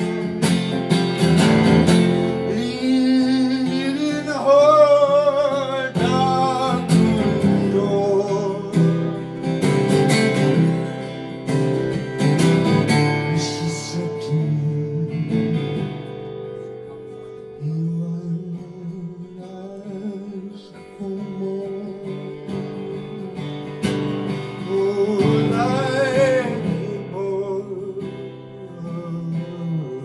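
A man singing a slow ballad to his own acoustic guitar. The voice drops out for several seconds in the middle, leaving the guitar playing alone, and comes back near the end.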